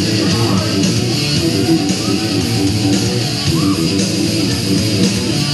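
Loud rock music driven by electric guitar, playing steadily.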